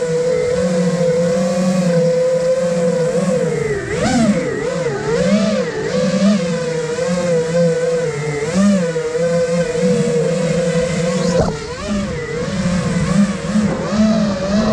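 Motors and propellers of an iFlight Nazgul Evoque F5 FPV quadcopter, whining and buzzing as the quad flies. The pitch holds steady at first, then wavers up and down from about four seconds in as the throttle is worked, and starts to rise right at the end.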